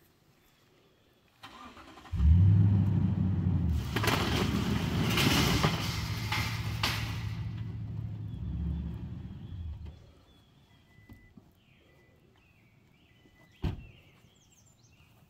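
Toyota Tundra pickup truck's engine starting about two seconds in and running as the truck pulls its utility trailer forward, with a loud rushing noise for about three seconds while it moves; the engine stops about ten seconds in. A single sharp knock, like a truck door shutting, comes near the end over faint bird chirps.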